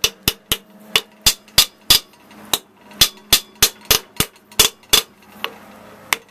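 A hammer strikes the valve plate and cylinder head of a cut-open Bristol hermetic reciprocating compressor to knock it loose. About fifteen sharp metallic blows, roughly three a second, each ringing briefly, with a short break in the middle.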